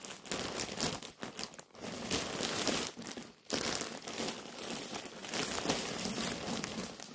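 Thin black plastic mailing bag crinkling and rustling as it is handled and opened, with a short break about three and a half seconds in.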